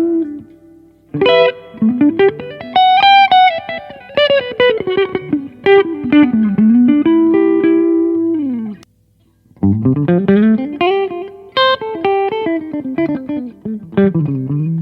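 A 2023 Gibson ES-335 semi-hollow electric guitar is played in flowing single-note melodic lines whose pitch glides up and down in bends and slides. The playing stops for about a second near the middle, then picks up again.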